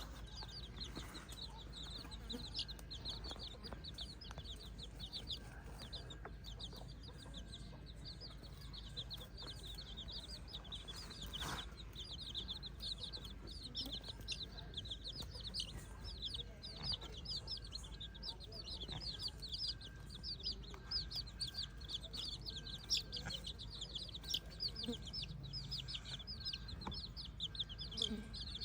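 A flock of chickens calling: many short, high-pitched peeps in a constant stream, with some clucking.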